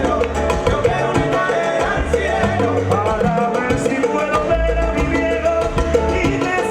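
Salsa music: a band with bass, steady percussion and singing or horns, loud and continuous.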